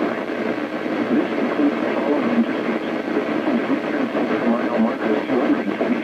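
NOAA weather radio receiving a weak VHF broadcast: a steady hiss of static with the broadcast voice muffled and broken up beneath it.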